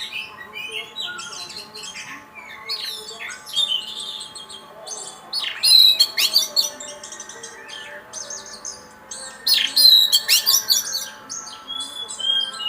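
Oriental magpie-robin (kacer) singing a varied song of quick whistles, rising and falling sweeps and trills, loudest in bursts about six and ten seconds in.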